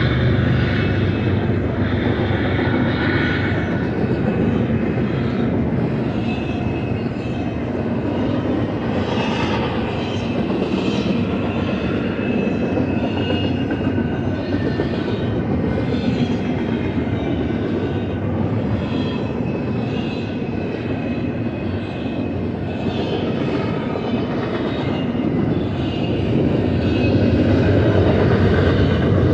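Loaded double-stack intermodal well cars rolling past: a steady rumble of steel wheels on rail with clickety-clack over the joints, growing a little louder near the end.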